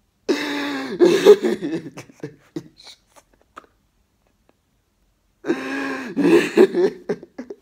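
A man crying hard: two loud wails a few seconds apart, each a held moan that breaks into choppy sobs, with a few short catches of breath between them.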